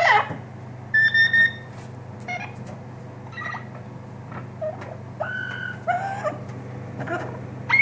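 Three short, steady beeps about a second in, then a string of short whistles and chirps from a pet parrot, bending up and down in pitch. A steady low hum runs underneath.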